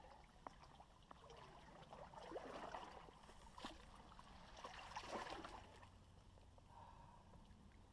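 Faint splashing of shallow river water as a landing net is dipped in to scoop up a small hooked perch, with the loudest splashes about two to three seconds and five seconds in.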